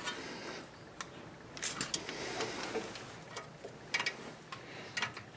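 Wrenches clicking and scraping on a camber bolt and its nut as the bolt is turned, with scattered light metal clicks and a few sharper ones near the end.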